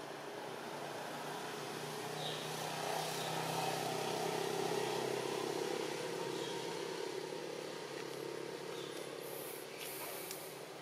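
A distant engine droning, swelling over the first few seconds and then slowly fading away, with a few faint high clicks near the end.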